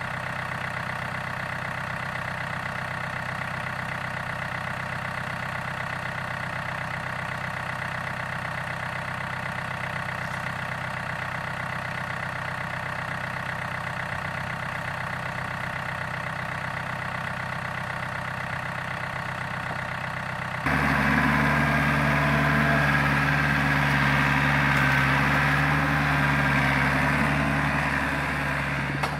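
Diesel tractor engine idling steadily. About two-thirds of the way through it changes abruptly to a louder, closer running engine.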